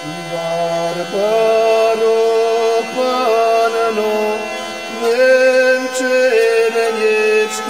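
Hurdy-gurdy playing a slow melody of held notes over a steady drone, its wheel turned by the crank; the melody comes in about a second in, over a low drone note that enters at the start.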